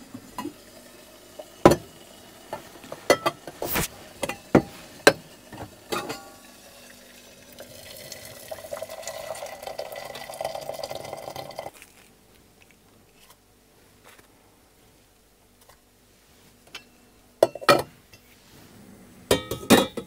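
Dishes, cutlery and glasses clinking and knocking in a string of sharp clinks, with a steady hiss lasting about four seconds around the middle, a quiet spell, then a few more clinks near the end.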